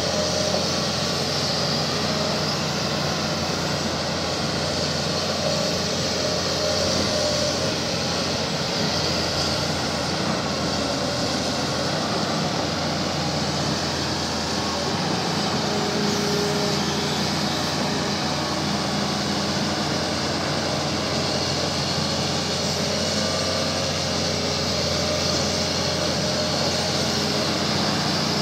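Hitachi Zaxis 350 LCH hydraulic excavator's diesel engine running steadily under load while the machine digs and swings its boom.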